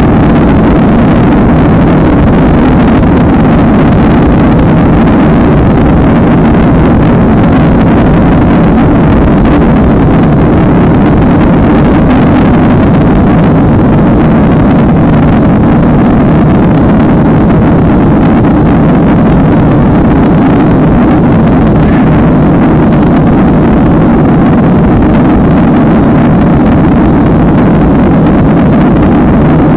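Loud, steady jet-engine and airflow noise inside a Boeing 737 cabin, a deep unbroken rumble that holds level without change during the climb.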